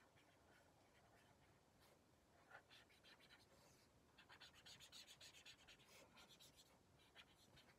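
Faint scratching of a marker's tip on sketchbook paper as a blue area is coloured in with quick back-and-forth strokes, densest a little past the middle.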